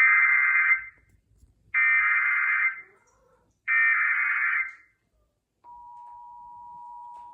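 Emergency Alert System SAME header: three short bursts of data tones, the header sent three times. About two seconds after the last burst, the steady two-tone EAS attention signal (853 and 960 Hz) begins near the end, quieter than the data bursts.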